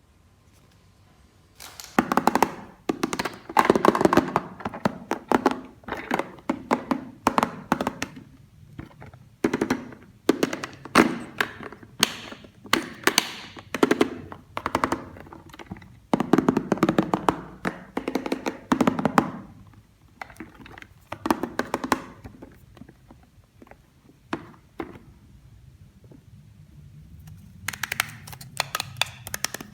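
Plastic toy pieces being handled: a long run of clicks, taps and knocks in clusters, starting about two seconds in, with a quick rattle of clicks near the end.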